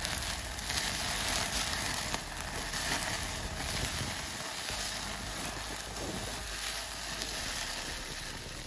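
Meat sizzling on a wire grill over a charcoal fire, a steady hiss with a few light clicks from metal tongs turning the pieces.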